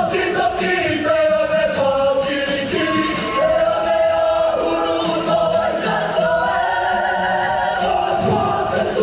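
A group of voices singing a Polynesian song together in harmony, with a steady beat under the singing.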